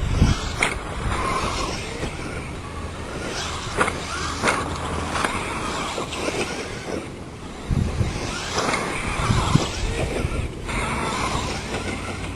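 Stampede RC truck driving, its electric motor and tyres on the ground surging in short bursts with sharp knocks between them.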